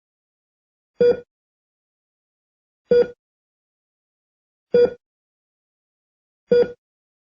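Hospital heart-rate monitor beeping: four short, identical beeps about two seconds apart, with silence between them. Each beep marks a detected heartbeat.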